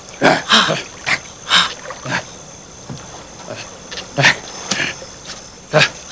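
Short, sharp yelping calls in quick, irregular succession, about eight in all, with a lull of a second or two around the middle.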